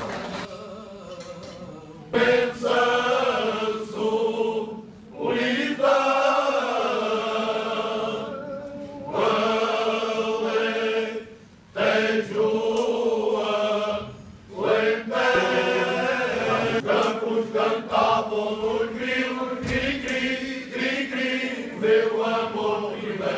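Unaccompanied men's choir singing cante alentejano in slow, drawn-out phrases with short pauses between them. It starts quieter and swells as the full group comes in about two seconds in.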